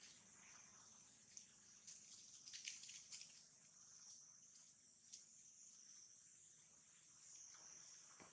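Near silence, with a faint steady high-pitched insect drone and a few soft ticks around the middle.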